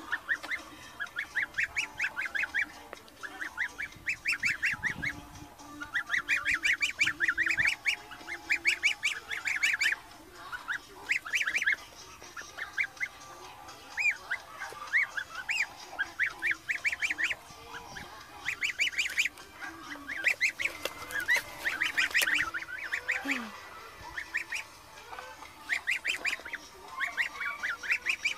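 A gosling peeping in quick runs of short, high calls, several a second, repeated over and over with brief pauses between the runs.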